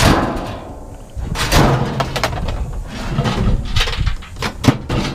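Scrap metal being shoved and banged into a full load: a series of clanks and knocks of metal on metal. The first one rings briefly.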